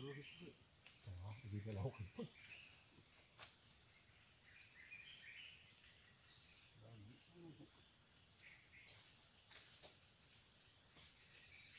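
Steady, high-pitched drone of a rainforest insect chorus, unbroken throughout.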